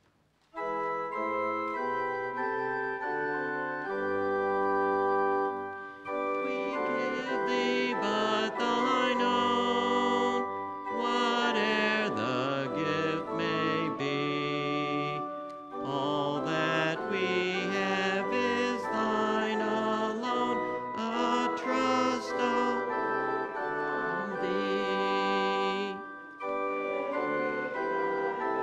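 Organ playing slow, sustained chords in a church, starting suddenly about half a second in, with brief breaks between phrases roughly every ten seconds.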